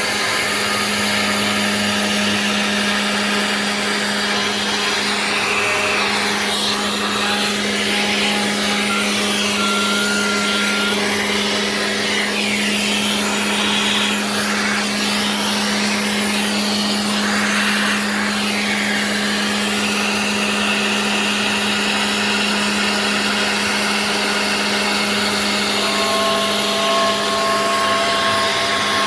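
Genmitsu 3020 PRO MAX CNC router's spindle running with a constant hum while the bit mills the workpiece. The cutting sound over the hum keeps changing as the tool moves through the part, and brief steady tones come and go.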